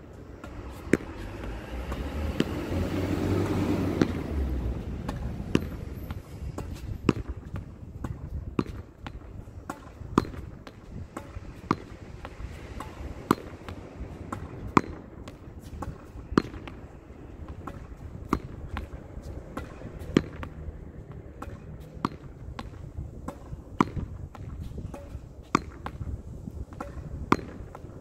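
A ball being hit repeatedly against a wall in a steady rally: sharp knocks about every one and a half seconds, with lighter knocks in between. A rumbling noise swells and fades over the first few seconds.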